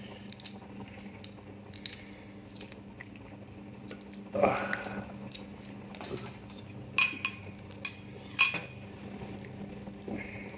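Metal cutlery clinking against dishes: a few small taps, then sharp ringing clinks about seven seconds in and again about a second later.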